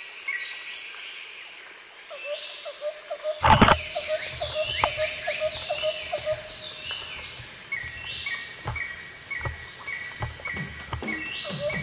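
Outdoor ambience of insects buzzing steadily with birds chirping in repeated short calls, and a loud knock about three and a half seconds in.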